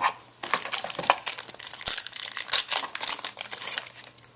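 Foil trading-card pack wrapper crinkling as it is handled, a dense run of quick crackles lasting about three and a half seconds.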